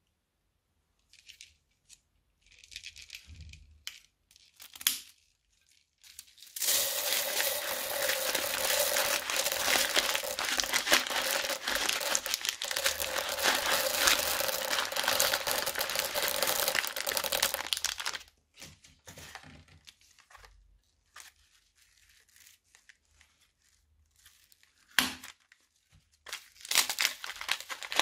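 Plastic piping bags filled with beads and foam balls crinkling as hands squeeze and empty them. A few light rustles come first, then a long dense stretch of crackling through the middle, a sharp click later on, and the crackling starts again near the end.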